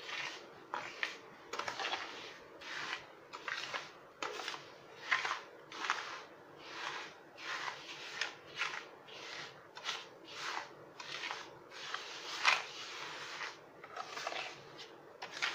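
Steel spoon stirring and scraping wet granulated sugar in lemon juice across a steel plate, in repeated gritty strokes of about one and a half a second.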